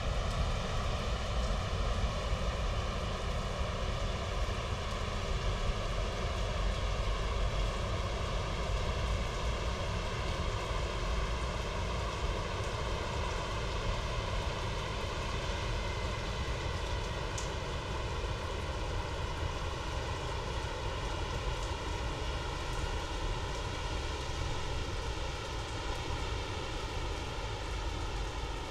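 Heavy rain pouring steadily onto a paved plaza and splashing into standing water, an even hiss with a low rumble underneath.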